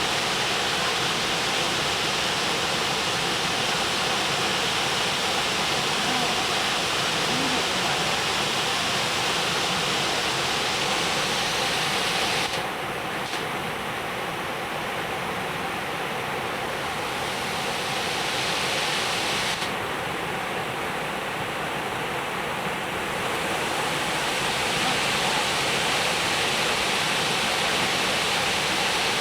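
Jukankoski waterfall: a steady roar of falling, rushing water. Its hiss dulls for several seconds about halfway through, then returns.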